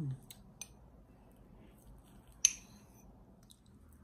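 A metal fork clinks once, sharply, against a ceramic ramekin about two and a half seconds in, as cake is scooped out. A couple of faint small clicks come before it.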